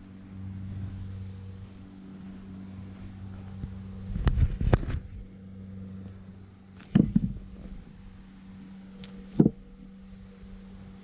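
Axe blows splitting oak firewood: two sharp strikes about four seconds in, another about seven seconds in, and one more near nine and a half seconds, each a hard knock with a brief ring. A steady low hum runs underneath.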